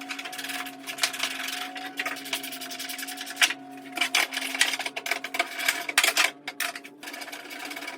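Fender bolts being run in with a tool: bursts of rapid mechanical clicking and whirring, several times, over a steady hum.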